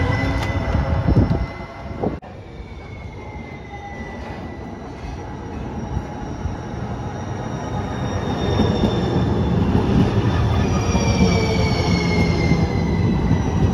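Light rail trolley train running along the platform, with high-pitched steel wheel squeal over its rumble. About two seconds in the sound cuts abruptly. A second trolley then pulls in and grows louder, its squeal rising to several tones that slowly fall in pitch.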